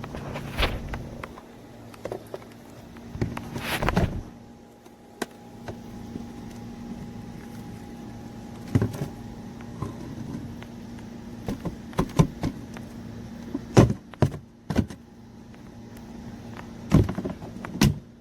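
Scattered plastic clicks, knocks and rattles of a vacuum cleaner's dust cup being detached, opened and emptied by hand, over a steady low hum.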